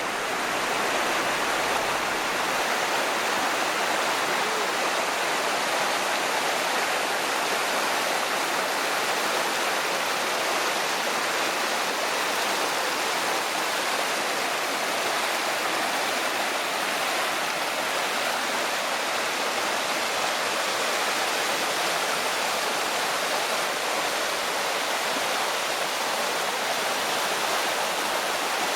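Waterfall cascade: water rushing steadily over rock.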